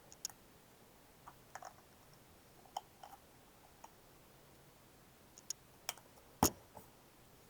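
Scattered small clicks and crinkles of a hand cream container being opened and its foil seal peeled off, with the loudest, a sharp click, near the end.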